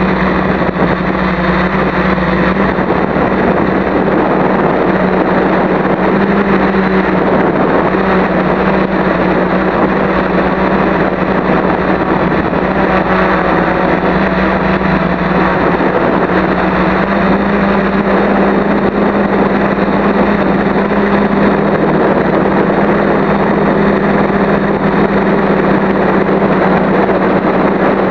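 Electric motors and propellers of a home-built quadcopter running steadily in flight: a constant hum with a rushing noise over it, the pitch barely changing.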